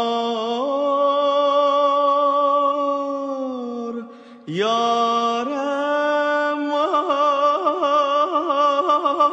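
Male voice singing long wordless held notes in Azerbaijani mugham style. Each note scoops up into a steady pitch, there is a short break about four seconds in, and from about seven seconds in the voice breaks into a run of quick trilled ornaments.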